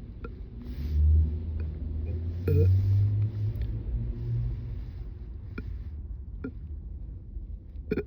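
A woman's long, low-pitched burp, starting about a second in, swelling again partway through and dying away after a few seconds, brought up from gas after chugging sparkling water. A few small clicks follow.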